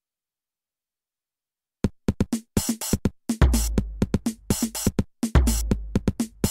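Roland TR-8S drum machine playing a beat from Oberheim DX drum samples, starting about two seconds in. Sharp drum hits come in a rhythm, joined after a second or so by long, deep bass notes.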